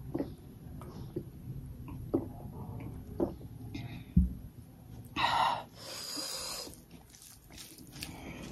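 Gulps as juice is drunk from a glass, then the glass set down on the table with a thump about four seconds in, followed by a loud breathy exhale after drinking.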